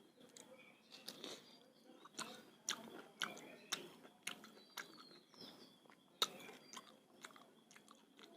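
Close-up chewing and lip-smacking of a person eating, a string of sharp mouth clicks and smacks about once or twice a second.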